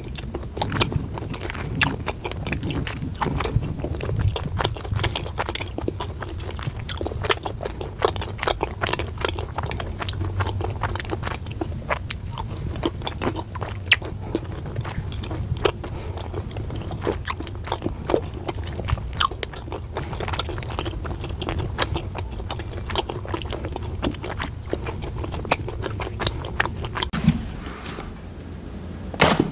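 Chewing of Swedish-style gummy candies, a steady run of small sharp mouth clicks and smacks, with a louder crackle near the end.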